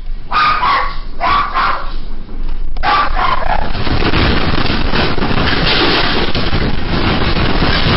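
A dog barks in about three short calls, then from about three seconds in a loud, steady rumbling noise takes over as the house shakes in an earthquake.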